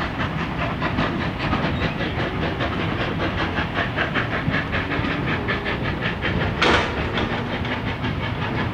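Pair of 0-6-0 steam locomotives working a train, with a rapid even beat of about five strokes a second over a steady rumble. About two-thirds through comes a short, loud burst of steam hiss.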